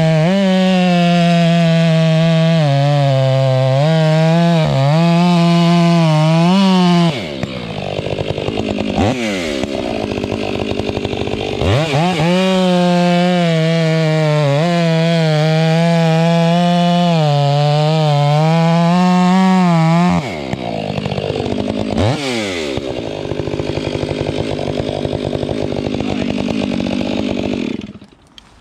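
Stihl two-stroke chainsaw with an aftermarket free-flow muffler cutting through a log at full throttle, its pitch sagging and wavering under load. It makes two cuts of about seven and eight seconds, with the throttle let off and the revs falling and rising between them. The engine drops away near the end.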